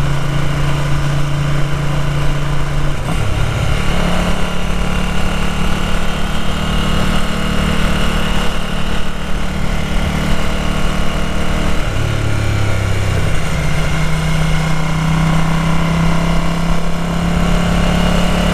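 Ducati 900 SS air-cooled V-twin engine running under way as the motorcycle is ridden. Its note drops about three seconds in and again about twelve seconds in, then picks back up. The owner says the engine has carburettor problems and runs unevenly.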